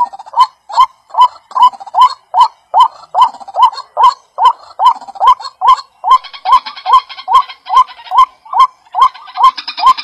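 White-breasted waterhen calling over and over, a short rising note about two and a half times a second. A rustling joins about six seconds in.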